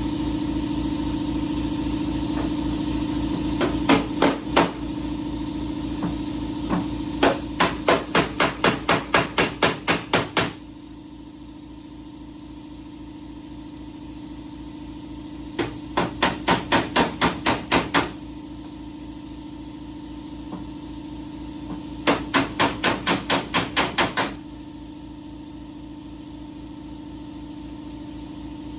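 Rapid, evenly spaced sharp strikes on metal, about four a second, coming in three runs of a few seconds each, over a steady machine hum.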